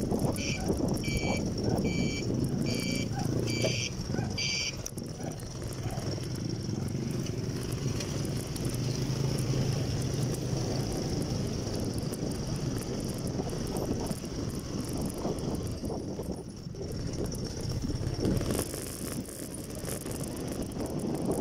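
Motorcycle ride: engine and wind noise with a steady low engine hum. In the first five seconds a run of electronic beeps, a little under two a second, then they stop.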